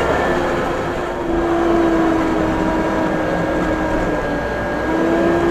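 Case 580 M backhoe loader's diesel engine running under work, with a whining tone that comes and goes and shifts slightly in pitch over a steady higher whine.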